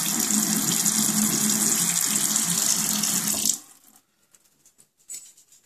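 Bathroom faucet running a steady stream into a sink basin, then turned off sharply about three and a half seconds in.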